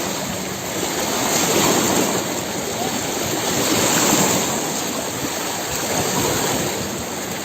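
Floodwater flowing over a highway, a steady rushing of water that swells and eases slightly.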